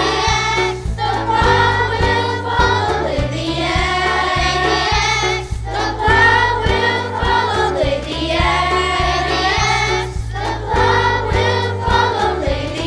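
A group of children singing a song together over instrumental accompaniment.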